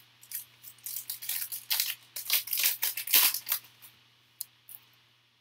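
A foil trading-card pack wrapper being torn open and crinkled by hand: a run of short ripping sounds for about three and a half seconds, loudest near the middle, followed by two faint ticks.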